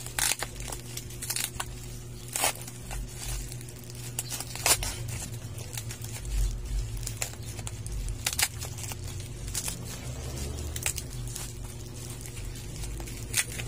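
Plastic packaging crinkling and rustling in irregular sharp crackles as it is handled and pulled open by hand, with a steady low hum underneath.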